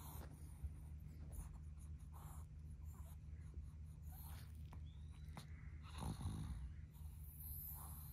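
A long-coat Chihuahua sniffing at a lettuce leaf held to its nose, in short irregular sniffs over a steady low hum.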